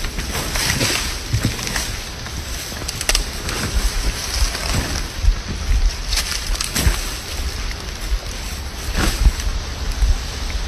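Wind buffeting the microphone: a gusty, rumbling noise that rises and falls, with a few scattered faint knocks.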